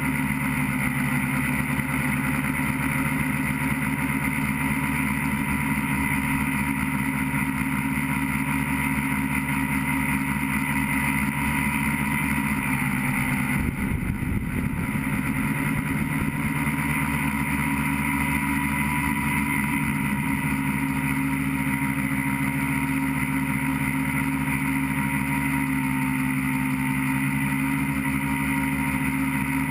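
Electric motors and propellers of an FPV tricopter running steadily in flight, heard from the camera mounted on the aircraft. The pitch shifts slightly and a rougher low rumble comes in briefly about halfway through.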